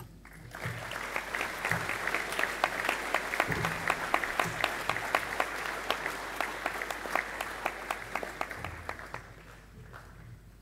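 Audience applauding: many hands clapping, building quickly at the start, holding steady, then dying away about nine seconds in.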